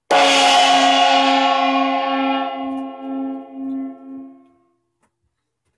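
A single gong strike ringing out and fading over about four and a half seconds, its low tone pulsing slowly as it dies away. It is the lightning-talk gong marking the end of a talk.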